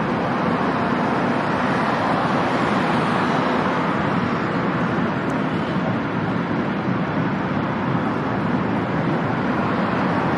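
Steady outdoor background rush, even and unbroken, with no gull calls heard.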